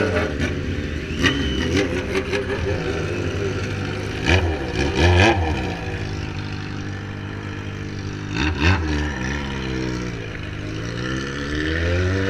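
Motorcycle engines running, blipped in short revs a few times, then an engine's pitch dropping and climbing steadily as a bike accelerates near the end.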